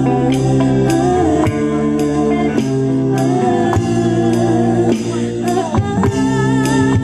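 Live band playing music, with held notes, a wavering melody line and a steady beat about twice a second.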